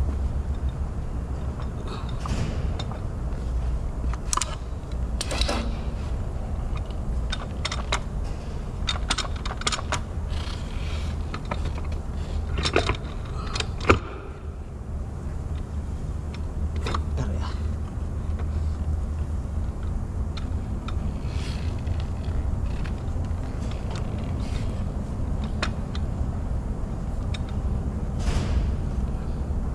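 Irregular metallic clinks and taps from hand tools and parts being handled during transmission repair work, over a steady low hum. One sharp knock about halfway through is the loudest.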